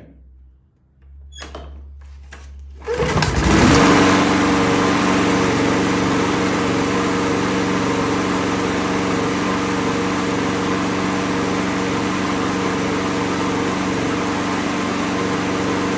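Lawn mower engine being started: it turns over for a couple of seconds, catches about three seconds in and then runs steadily at a constant speed. The engine sounds healthy after a new cutting deck has been fitted.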